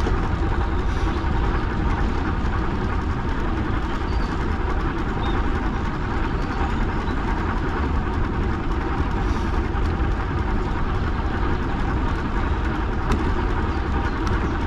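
Steady rumble of wind buffeting the microphone and tyres rolling along the path during a ride, strongest in the deep low end.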